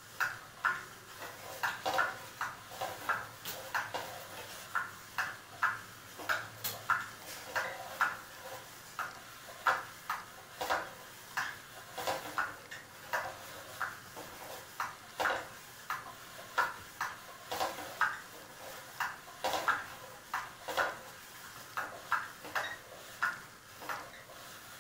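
A cat batting a small toy ball around a bristle-brush self-groomer arch: irregular light clicks and rattles, one to three a second, each with a brief ringing tone.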